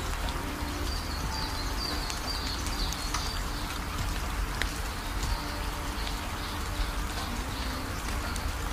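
Steady, even hiss like rain falling, over a low rumble. A run of faint, short high chirps comes in the first few seconds.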